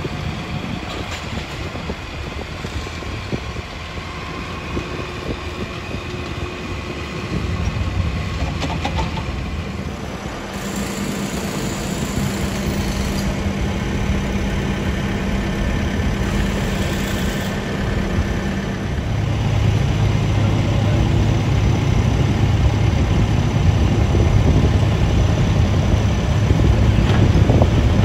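Diesel engines of heavy construction machinery running steadily, with a deeper engine drone coming in about two-thirds of the way through and growing louder toward the end.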